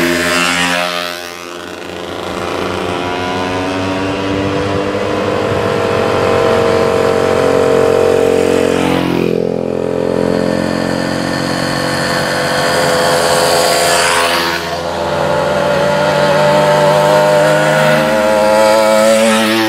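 Small two-stroke moped engines buzzing as the mopeds ride past one after another. Each engine's pitch drops sharply as it goes by, about three times, and the next one is heard approaching behind it.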